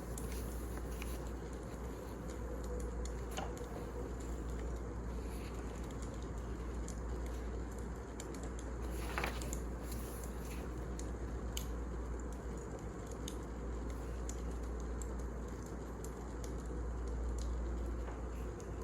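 Firewood burning in a fireplace: a steady low rush with scattered crackles and small pops, one louder pop about nine seconds in.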